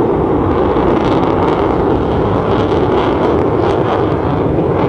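Belgian Air Force F-16 Fighting Falcon's jet engine, a loud, steady rush of jet noise as the fighter climbs overhead.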